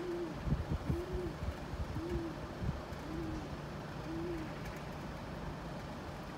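Level crossing audible warning alarm sounding a repeated rising-and-falling tone about once a second, then stopping about four and a half seconds in. A few low thuds come in the first few seconds.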